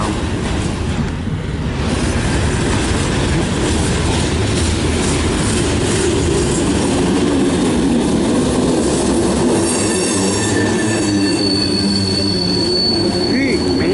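Freight train cars rolling past close by, a loud, steady rumble of steel wheels on the rails. About ten seconds in, a high-pitched wheel squeal joins it and holds.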